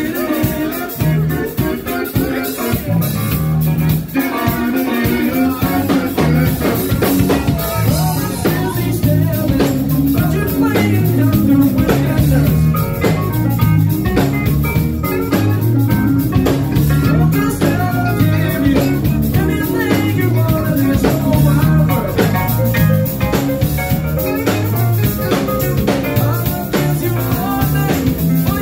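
Live band playing a song with a singer over keyboards, electric guitar and a drum kit, loud and steady with a regular beat.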